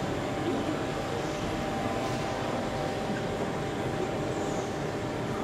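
OO gauge model Class 08 diesel shunter running, a steady diesel-like rumble over the exhibition hall's background noise.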